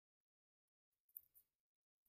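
Near silence, with one faint, brief scrape about a second in, as a star anise is pressed into the edge of raw gujiya dough on a stone counter.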